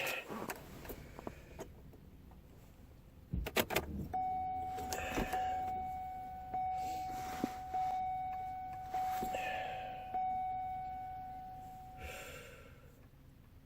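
A clatter of keys and clicks, then the car's warning chime dinging about six times, a little over a second apart, each ding fading before the next.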